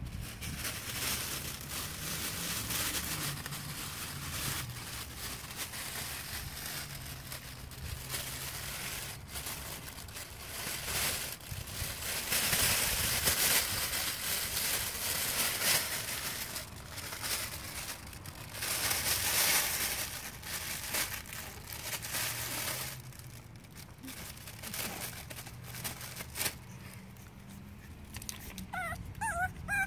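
Crinkly fabric of a pop-up pet play tunnel rustling and crackling as a Boston terrier puppy crawls through it, loudest about halfway through. Near the end a puppy whimpers and yips in short high calls.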